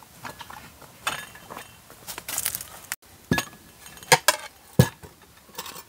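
Glassware clinking: small glass bowls set down on a serving tray and a utensil knocking against a glass mixing bowl. A string of sharp clinks and knocks, the loudest ones in the second half.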